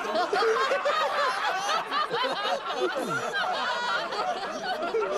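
A crowd laughing, many voices overlapping at once.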